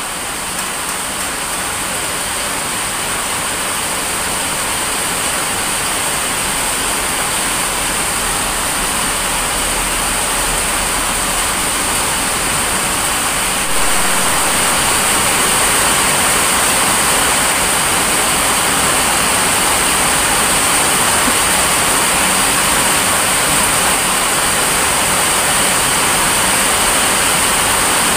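Heavy rain falling: a loud, steady hiss that steps up slightly about halfway through.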